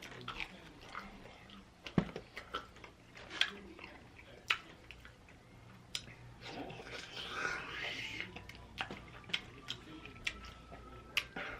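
Close-miked chewing: a person eating with scattered sharp mouth clicks, and a softer stretch of chewing noise in the middle.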